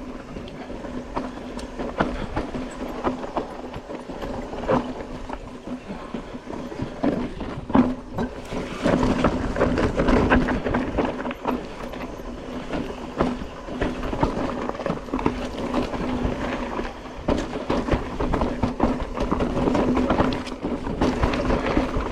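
Mountain bike descending a rough, rocky downhill trail: continuous rattle and clatter of the bike over rock and roots, with many sharp knocks over a steady buzz, louder from about eight seconds in.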